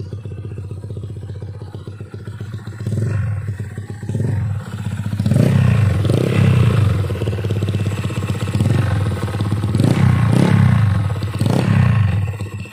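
Honda Click scooter's single-cylinder engine, bored up to 170cc and fitted with an aftermarket racing pipe, idling and then revved in a series of short throttle blips from about three seconds in.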